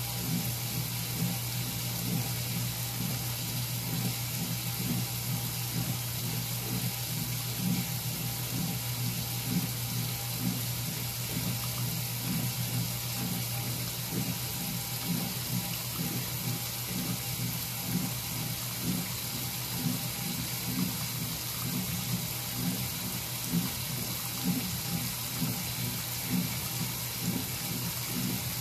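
Water spraying into the stainless tub of a 1957 Blackstone 350 automatic washer as it fills for the wash, a steady rushing hiss with a constant low hum beneath it.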